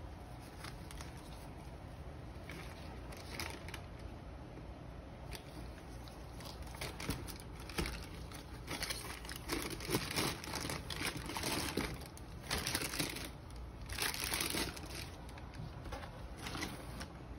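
Tissue paper crinkling and rustling as it is folded over a pair of sneakers in a shoebox, in irregular bursts that get louder about halfway through, after lighter handling rustles.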